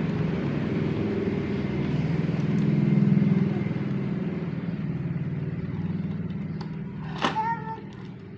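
A motor vehicle engine running, growing louder to a peak about three seconds in and then fading away. A sharp click comes near the end.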